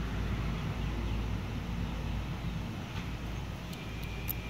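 Steady low background rumble, with a few faint light clicks about three to four seconds in from small steel tweezers working inside a dismantled common rail diesel injector.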